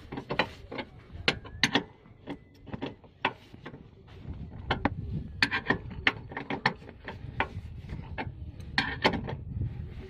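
Maruti Suzuki Ertiga front seat belt retractor being handled by hand. Its webbing is pulled out and the mechanism clicks and ratchets in many irregular sharp clicks.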